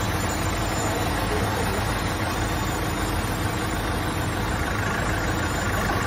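Forklift engine running steadily, a low even drone with no sharp knocks or bangs.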